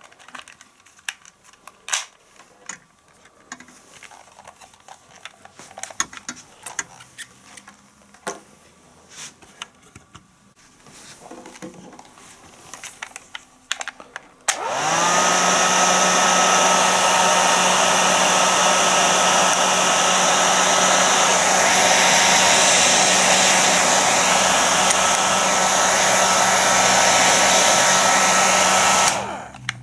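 Krups Quickair 600 bonnet hair dryer switched on about halfway through: its fan motor spins up with a short rising whine, then runs steadily with a loud rush of air and a steady whine, and switches off just before the end. Before it starts there are only light clicks and handling knocks.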